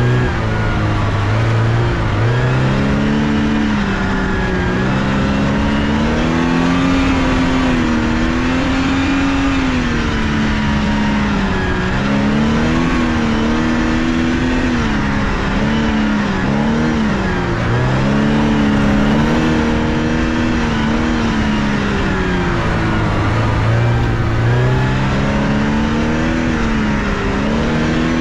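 Porsche 944's inline-four engine heard from inside the cabin, driven hard on a dirt rallycross course, its note climbing and dropping again and again as the driver accelerates and lifts. Steady tyre and gravel noise runs underneath.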